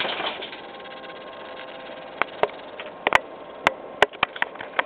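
A scatter of sharp clicks and taps, about nine, irregularly spaced and starting about two seconds in, over a faint steady hum.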